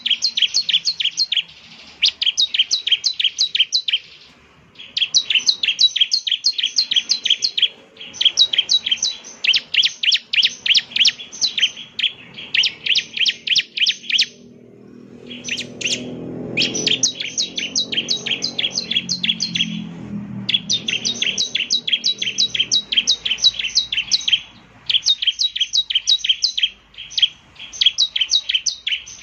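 Bar-winged prinia (ciblek) singing fast runs of sharp, repeated chirping notes, in phrases of a few seconds broken by short pauses.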